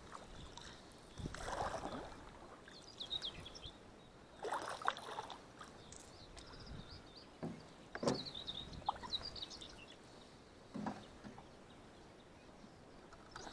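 Wooden paddle strokes in the water from a small boat: four dips and splashes, roughly three seconds apart.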